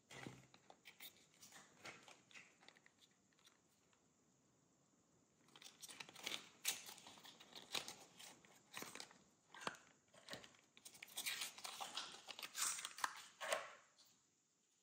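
Soft handling noises from small foil-finished cardboard cartons of Dior Addict Lip Glow Oil being picked up and opened: taps, clicks and crinkling. There are a few scattered taps at first, a short lull, then steadier crinkling and clicking through most of the second half.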